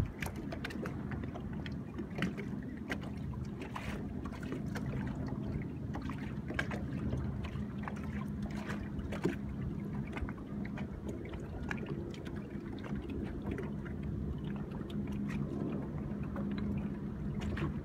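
Water lapping against a boat's hull, with scattered small slaps and ticks over a steady low hum.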